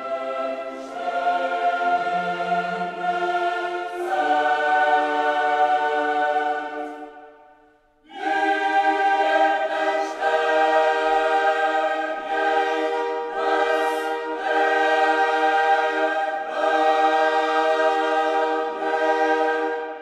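Choral music: a choir singing long held chords. The sound dies away about seven seconds in, and a new chord comes in a second later.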